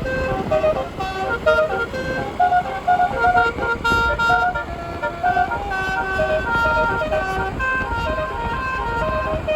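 Indonesian 'telolet' bus horn, a set of twelve roof-mounted air horns, playing a tune of short held notes that step up and down, over a steady low noise.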